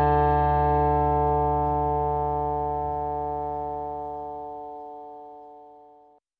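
Background music ending on a long held chord that slowly fades and then cuts off just before the end.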